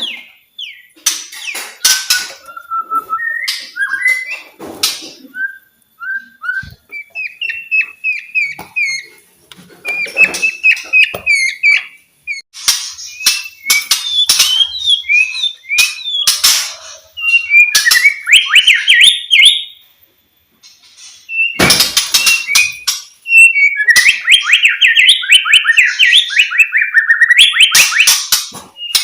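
White-rumped shama singing: a varied run of clear whistled phrases and rapid chattering trills, broken by sharp harsh clicks, with a short pause about two-thirds of the way through.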